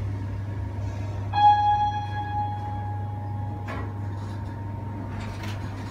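Lift cabin hum with a single electronic chime about a second and a half in that rings out and fades over a couple of seconds as the lift reaches its floor. A short knock follows.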